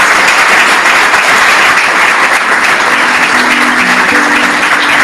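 Loud audience applause. Music with plucked string notes comes in about three seconds in.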